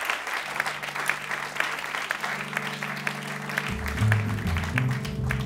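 Audience applause tailing off as a jazz piece begins: low held notes enter one after another. About four seconds in, piano and bass come in.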